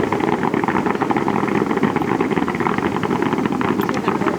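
Fireworks display: a steady, dense crackle over a low rumble, with no single loud bang standing out.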